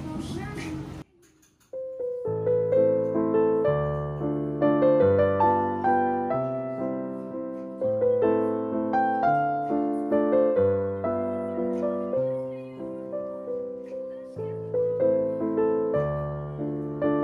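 Slow, gentle solo piano music, a melody over broken chords, with each note fading after it is struck. It comes in about two seconds in, after a second of steady background noise that cuts off abruptly.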